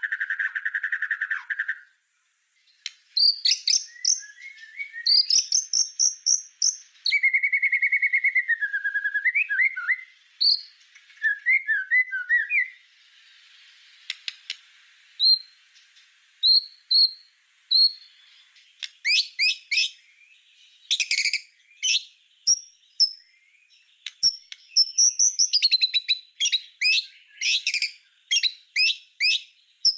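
White-rumped shama (murai batu) singing a varied song: a buzzy rapid trill that stops near the start, then clear whistles and slurred glides, and in the second half runs of sharp, fast, repeated 'tembakan' notes.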